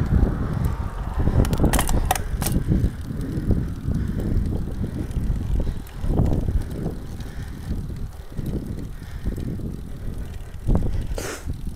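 Road bicycle riding along a road, mostly wind buffeting the bike-mounted microphone as an uneven low rumble, with a few sharp clicks about two seconds in and another near the end.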